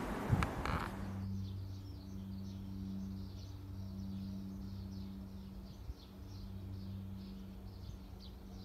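Small birds chirping, many short high calls repeating over a steady low hum. For the first second, rumbling train noise with a few sharp clicks.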